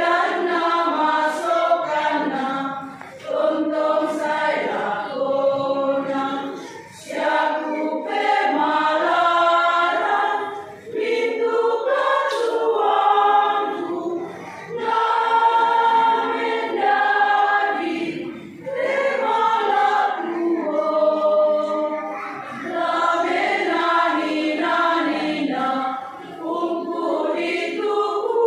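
Women's church choir singing together, phrase after phrase with short breaths between.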